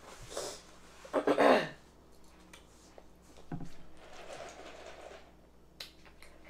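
Paper napkin rustling and being crumpled as hands are wiped, loudest a second or so in. Then a knock and handling noise as a large paper drink cup is picked up from the table, with a sharp click near the end.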